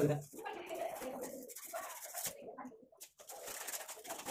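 Sandpaper rubbed by hand over a pipe to scrape off stuck cement: an uneven rasping scrub made of many quick strokes, with a short low hum at the very start.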